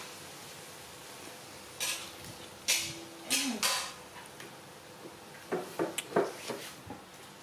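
A plastic baby bottle knocking and scraping on a concrete floor as a puppy chews and pushes it. Short clatters come a few times from about two to four seconds in, and again in a cluster about six seconds in.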